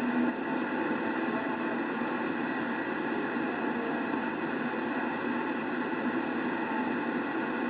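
Yaesu transceiver's speaker giving out steady radio static and hiss on CB channel 4 (27.005 MHz) between transmissions, with faint steady whistles of interference running through it.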